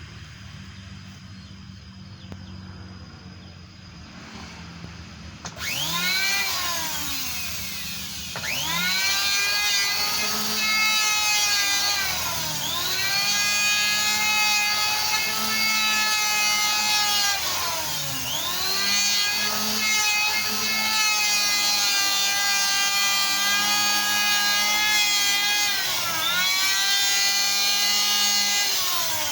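Electric power tool boring into wood. It starts about five seconds in over a low hum, rises to a steady high whine, and its pitch sags three times as the bit bites into the wood and the motor slows under load.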